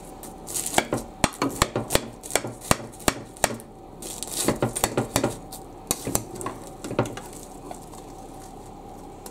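A metal slotted spatula clinking and scraping against a ceramic baking dish as it cuts through a baked puff-pastry pie crust: a run of sharp, irregular clicks and knocks that thins out near the end.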